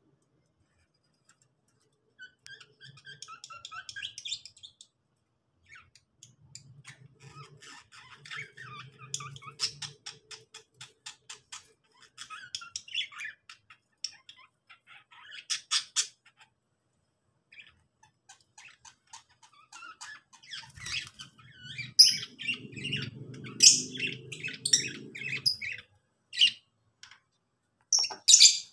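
Lovebirds in a small aviary chattering with rapid high chirps and squawks, in irregular bursts that get busier toward the end.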